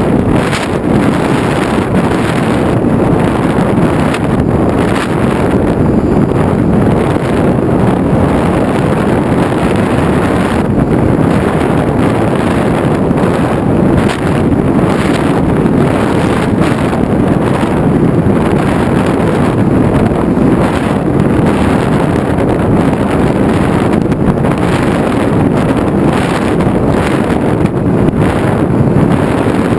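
Steady, loud wind rush on the microphone of a camera riding on an FPV model aircraft in flight.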